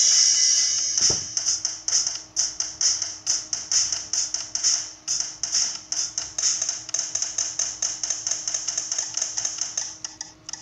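Sampled cymbal strikes from the Real Drum phone app, tapped in a quick run of about five a second, with a cymbal ringing out at the start and a single low drum hit about a second in. The strikes grow fainter near the end.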